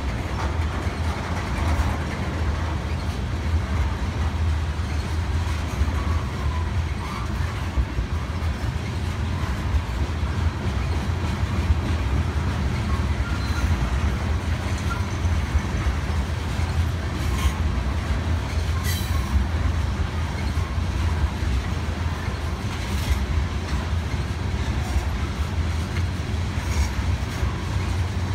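Freight train of oil tank cars rolling past close by: a steady rumble of steel wheels on rail with clicking over the rail joints, and a few brief high squeals from the wheels in the second half.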